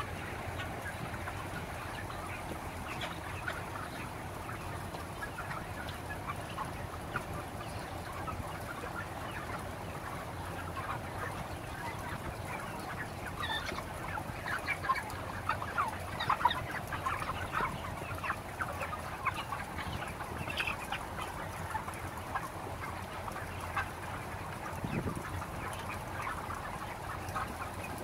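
A large flock of broiler chickens clucking, many short overlapping calls that grow busier and louder in the middle, over a steady low hum.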